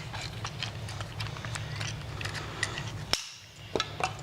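Scattered small clicks and taps of hands working the plastic battery compartment of a motorized toy train, over a steady low hum.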